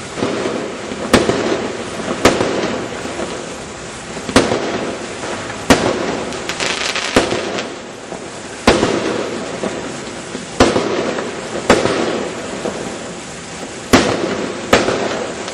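Fireworks going off: about nine sharp bangs at irregular intervals of one to two seconds, over continuous noise.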